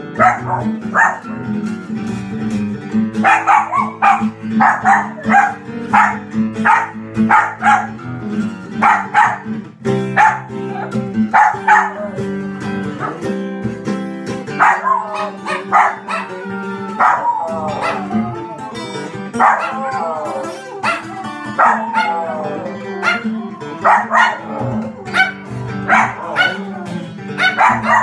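Acoustic guitar playing a blues while a small dog barks and howls along. The dog gives runs of short barks, then about halfway through some longer howls that slide down in pitch.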